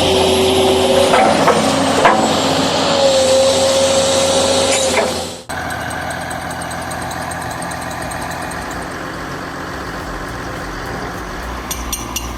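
Heavy forestry machinery at work: dense mechanical noise with a steady whine and a few knocks. About halfway through it cuts off suddenly and gives way to a heavy machine's engine running steadily.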